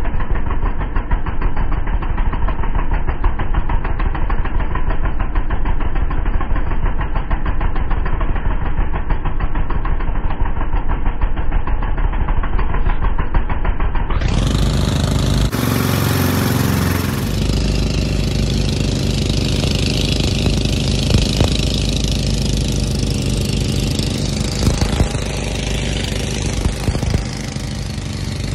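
A fishing boat's engine running steadily under way, with a fast, even throb. About halfway through the sound turns fuller and brighter, and a short rushing noise follows.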